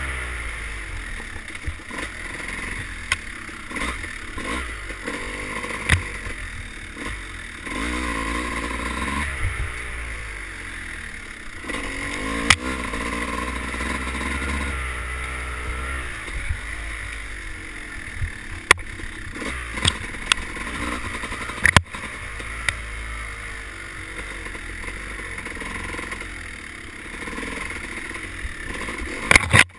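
Off-road dirt bike engine running along a wooded trail, its pitch rising and falling as the throttle opens and closes, heard from the rider's helmet. Several short sharp knocks come through now and then.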